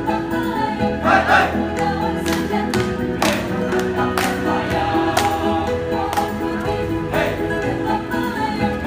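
A live choir singing in sustained chords, with a sharp beat about once a second.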